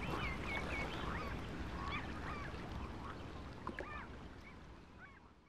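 Birds giving short, wavering cries over a low steady rush of background noise, the whole gradually fading out.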